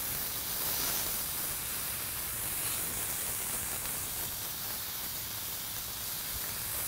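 Smashed 80/20 ground chuck patties sizzling on a hot Blackstone flat-top griddle: a steady, even hiss.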